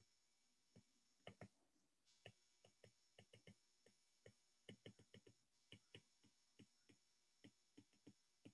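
Faint, irregular clicks of a stylus tip tapping on a tablet's glass screen during handwriting, about twenty light taps.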